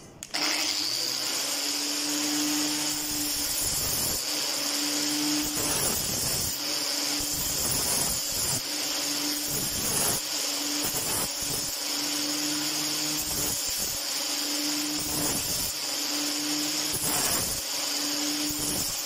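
A bench-mounted angle grinder starts suddenly and runs with a steady high whine while a small metal piece is held against its disc and ground. A lower hum and scraping come and go every second or so.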